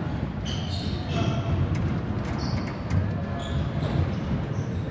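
Many rubber-soled court shoes pounding and squeaking on a hardwood squash court floor as a crowd of players runs and turns, with frequent short, high squeaks over a constant patter of thuds.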